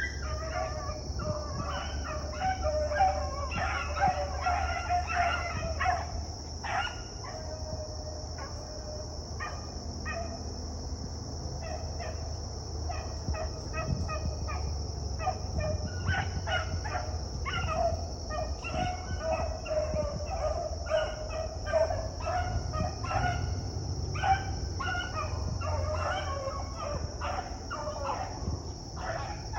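Beagles baying on a rabbit track: a chorus of short, repeated hound cries, thinning out for a few seconds before building again. A steady high-pitched hiss runs underneath.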